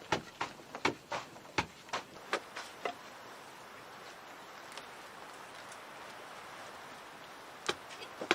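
A series of sharp knocks, about three a second, that stop about three seconds in, leaving a steady hiss; the knocks start again near the end.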